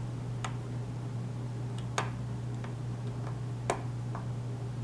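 Lock pick clicking against the pins of a pin-tumbler challenge lock with a Schlage keyway: a few sharp, isolated clicks about a second and a half apart as the pins are probed for binders, over a steady low hum.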